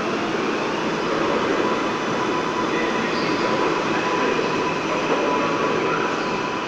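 New York City subway train pulling out of a station, its wheels running on the rails with a steady whine over the running noise.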